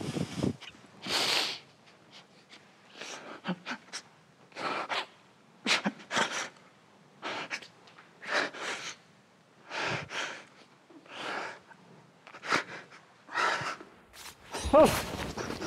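A man crying: a run of sniffs and shaky breaths about once a second, with a short voiced sob near the end.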